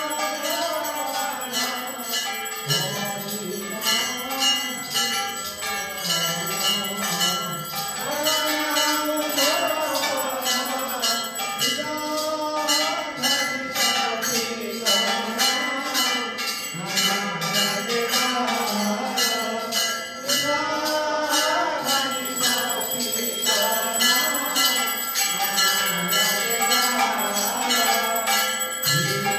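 A temple hand bell rung steadily in a quick even rhythm, about three strokes a second, for the aarti offering. Devotional singing runs alongside it.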